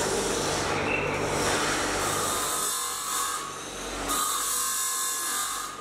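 Rasping, scraping tool noise, like filing or sanding. It runs steadily, then breaks into two long passes in the second half.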